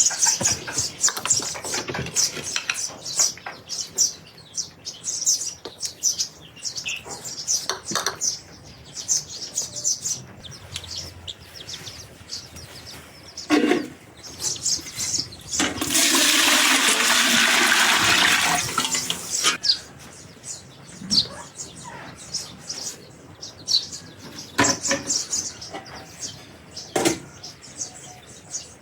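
Small birds chirping over and over, with a few sharp knocks. About midway a loud rushing noise like running water starts, holds for about three and a half seconds, then stops.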